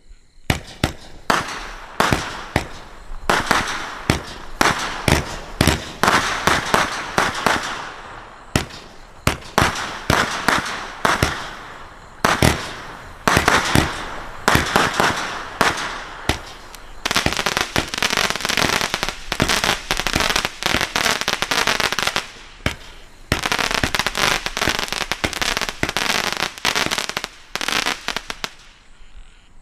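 A 500-gram, 126-shot Winda Patriotic Sky Buster firework cake firing in quick succession: rapid shots and small breaks one after another, with crackling tails that become dense through much of the second half.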